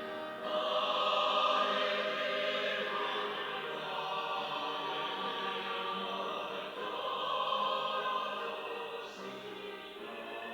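Church choir singing an anthem in sustained chords. It swells louder about half a second in and eases off near the end.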